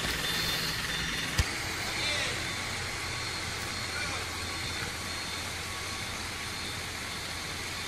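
Hino truck's diesel engine idling steadily, with one sharp knock about a second and a half in.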